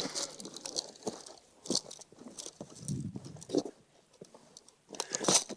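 Irregular crunching and rustling close to the microphone, as a player moves through brush with gear shifting. A denser burst of crunching comes near the end.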